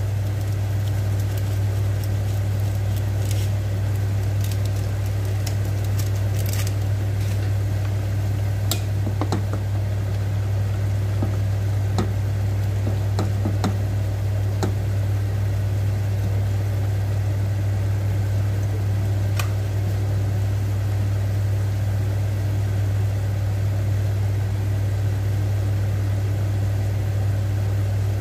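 A pot of water spinach boiling on a gas stove under a steady low hum, with a few light knocks of a wooden spoon against the pot in the first half as it is stirred.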